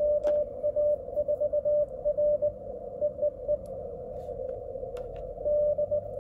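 Morse code (CW) signal received on the 10-metre band through an ICOM IC-705 transceiver: a single mid-pitched beep keyed in dots and dashes over faint band hiss, with the other station sending its callsign and handing over, 'DE JA4LCI K'. The keying stops for about a second and a half in the middle, leaving only hiss.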